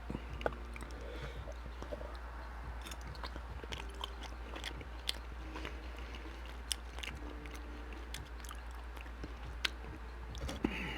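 A person biting into and chewing sausage close to the microphone, with scattered small wet mouth clicks and smacks.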